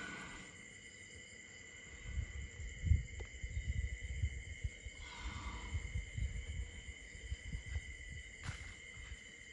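Crickets trilling steadily in the night, with irregular low rumbling and thumping from about two seconds in until near the end.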